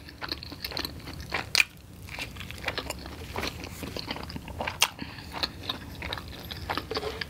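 A person chewing a mouthful of sausage, egg and hash-brown breakfast burrito close to the microphone: a run of small mouth clicks, with a couple of louder ones.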